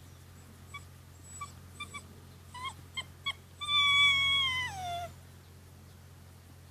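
Rhodesian Ridgeback puppy giving a string of short, high yips, then one long whine of about a second and a half that drops in pitch at its end.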